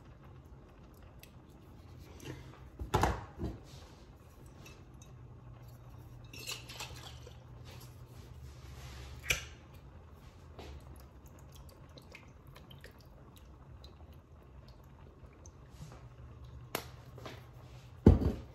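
Kitchen handling noises at the stove: a few short knocks and clatters of containers and cookware, the loudest about three seconds in and just before the end, over a steady low hum.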